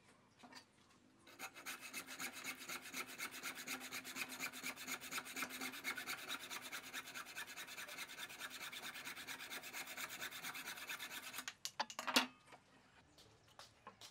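Hacksaw cutting into a turned wooden cylinder clamped in a bench vise, with a steady run of quick back-and-forth rasping strokes. The sawing stops a little before the end, followed by a few sharp knocks.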